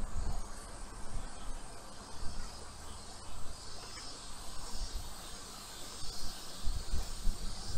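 Insects droning steadily, with wind gusting and rumbling on the microphone of a moving bicycle.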